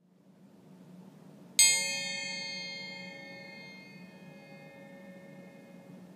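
A suspended metal orchestral triangle struck once with a beater about a second and a half in, ringing with many closely spaced high overtones that die away slowly over the next few seconds, the highest first.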